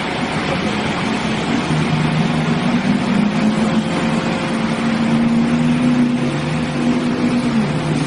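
Pickup truck engine running under load as the truck pushes through deep water, its note holding steady from about a second and a half in until shortly before the end, over a continuous rush of churning water.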